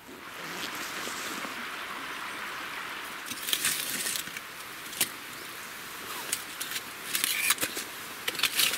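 Metal fire tongs clinking against a metal can and knocking charred firewood as the half-burnt logs are lifted out and dropped onto a fire pit, with several sharp clatters over a steady hiss.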